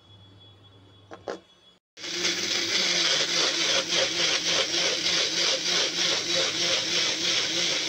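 A couple of short clicks, then, about two seconds in, a small personal blender starts and runs steadily: a loud whir over a low motor hum as it purees mango pulp.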